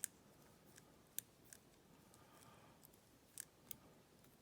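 A handful of scattered, sharp, faint clicks from a lever-lock pick and tensioner working the levers inside a small all-brass four-lever lock.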